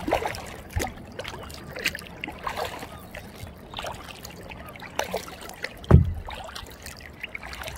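Kayak paddle strokes on calm water: the blades dip and drip, with small splashes and trickles. There is a low thump about six seconds in.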